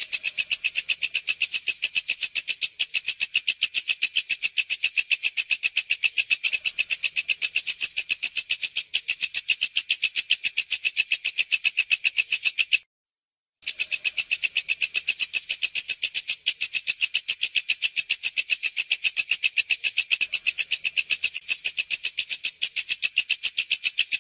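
Walang kecek, a katydid (bush cricket), stridulating: a fast, even train of sharp, high-pitched chirps. About halfway through, the train breaks off for under a second of dead silence, then resumes just as before.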